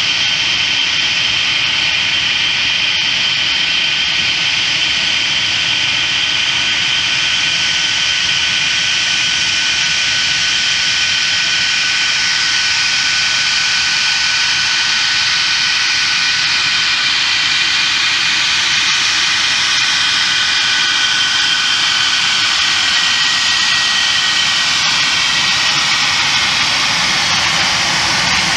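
English Electric Lightning jets taxiing, their Rolls-Royce Avon turbojets giving a loud, steady whine with several high held tones. The tones shift and fade slightly in the last few seconds.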